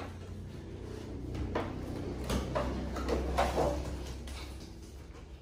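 A toy's cardboard box and packaging being handled and pulled at as someone struggles to open it: a sharp knock at the start, then irregular scraping and rustling.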